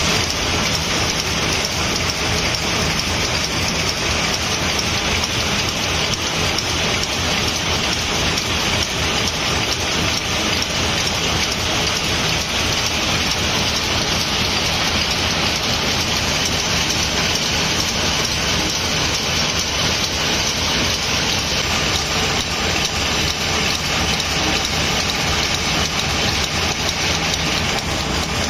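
Screw-making machine running: a dense, steady clatter of small steel screw blanks tumbling in its rotating feed hopper and sliding down the feed rail, over a steady low machine hum.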